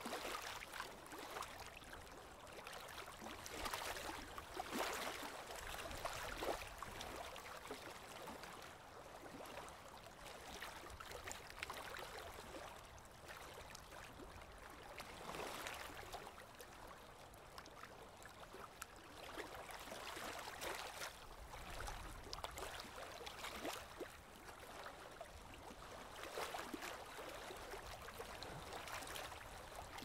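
Flowing stream water, a steady rushing and trickling that swells and eases every few seconds.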